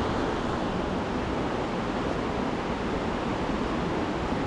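Steady rush of a mountain stream, an even noise with no distinct events.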